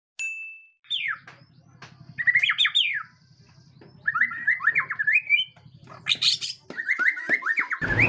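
White-rumped shama (murai batu) singing short runs of quick, repeated down-slurred whistles, each run much like the last.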